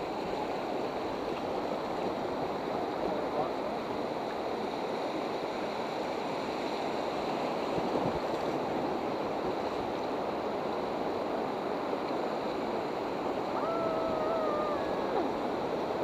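Whitewater river rushing steadily past the raft. A faint distant shout is heard about two seconds before the end.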